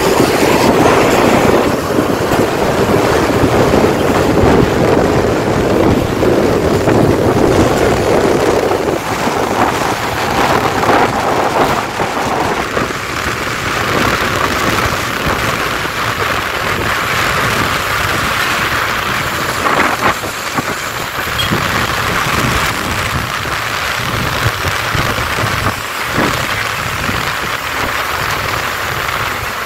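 Steady rush of rain and road traffic, heard while moving along behind an intercity bus on a wet road. The deeper part of the rumble drops away about halfway through.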